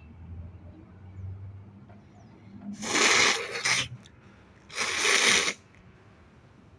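A person sneezing twice, wet and uncovered. Each sneeze is a loud, hissing burst about a second long, the first coming after a brief voiced build-up.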